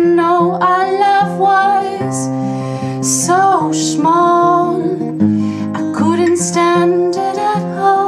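A woman singing with her own acoustic guitar accompaniment, a slow sung melody over sustained strummed chords.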